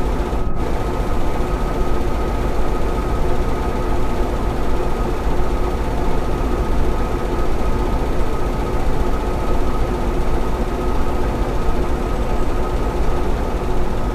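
Custom-made 'tripod' sound effect: a loud, steady mechanical drone with a deep rumble and two held tones, one low and one high.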